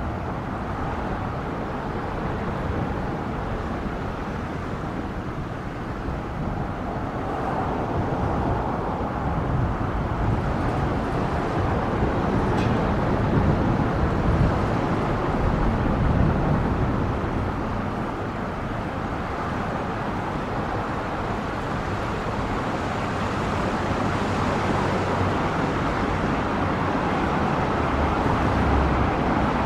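Road traffic noise: a car drives up and passes close by, swelling to its loudest about halfway through over a steady hum of traffic.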